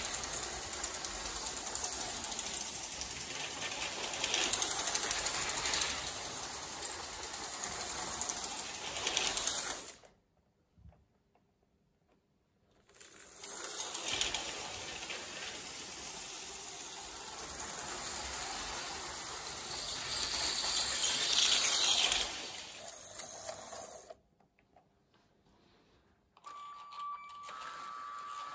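LEGO 12-volt train running on its plastic track: a busy, steady rattle of the motor and wheels going over the rails and joints, stopping abruptly twice for a few seconds. Near the end a quieter, steady high whine takes over.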